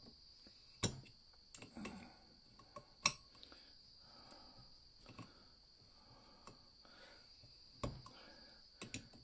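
Metal clicks and taps of locking pliers on the brass sleeve and chrome group head of a La Pavoni lever espresso machine as the sleeve is turned into its threads. Three sharp clicks, about a second in, about three seconds in and near the end, with fainter taps between, over a faint steady high whine.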